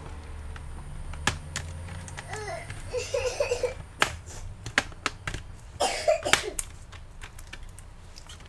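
Sharp clicks and snaps as the laptop's bottom cover is pried off with a tool and its clips pop free, over a steady low hum. A young child's voice babbles briefly twice, in the middle and again a little later.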